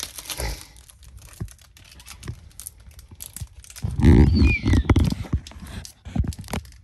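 Crinkling and rustling of a foil Pokémon booster pack wrapper being handled and worked open, with scattered small clicks. About four seconds in there is a louder stretch of bumping handling noise on the phone's microphone.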